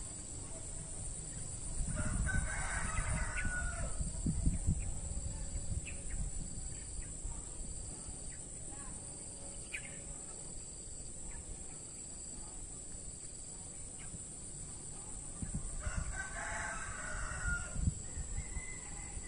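A bird calling twice, each a long pitched call of about two seconds, the two well apart, over a steady high drone and a low rumble.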